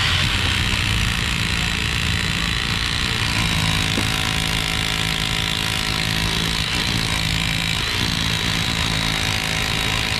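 Corded electric rotary hammer with a pointed chisel bit chipping concrete, running steadily without a break.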